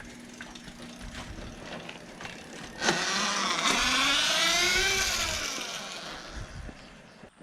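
Highboy DK1 electric dirt bike's motor whining as the bike speeds up and then slows. The pitch rises for a second or two and falls away again, with a hiss of tyre and drivetrain noise.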